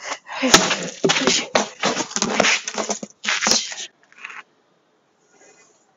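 A cane striking plastic traffic cones, which clatter and scrape over the concrete as they are knocked about, with a flurry of hits and scuffs. Two sharp cracks stand out, about half a second in and again about three and a half seconds in.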